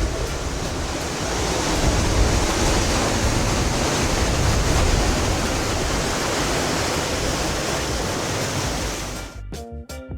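Steady rush of ocean surf and wind, with wind rumbling on the microphone. It gives way to background music with a beat about a second before the end.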